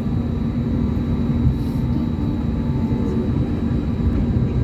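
Steady engine rumble inside the cabin of an Airbus A321neo, its Pratt & Whitney PW1100G engines running, with a low hum and a faint wavering higher tone.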